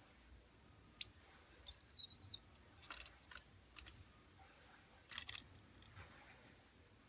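A white Java sparrow gives one short, wavering chirp about two seconds in. A handful of sharp clicks and crinkles come as it pokes among plastic packages in the drawer.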